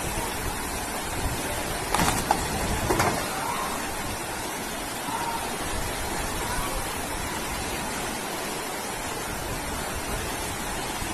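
Fast floodwater rushing steadily down a street, with two short, sudden, louder sounds about two and three seconds in.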